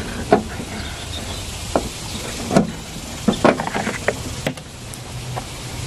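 Plastic push-pin retainer clips snapping out of a trunk-lid liner as a trim clip remover pries them free. There are about half a dozen short, sharp pops at irregular spacing.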